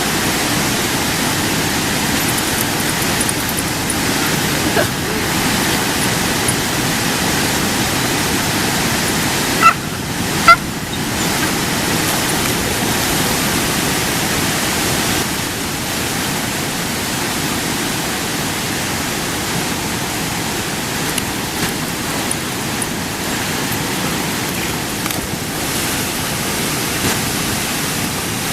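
Waterfall rushing, a steady even roar of falling water. Two brief loud sounds stand out about ten seconds in, less than a second apart.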